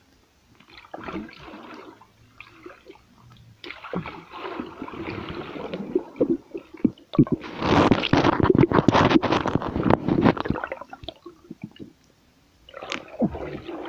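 Underwater sound of a person swimming in a pool: bubbling and rushing water in bursts, with many small clicks. The loudest stretch comes a little past halfway, and a shorter burst comes near the end.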